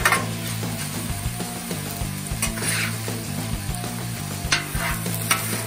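Mixed vegetables sizzling on a hot Blackstone flat-top griddle as two metal spatulas toss them. A few sharp scrapes and clacks of the spatulas against the steel cooktop cut through the sizzle.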